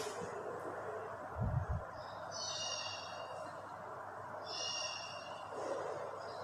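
Dry-erase marker squeaking on a whiteboard in two short high-pitched squeaks, each under a second, as lines are drawn. Two low thumps come about a second and a half in, over a steady background hum.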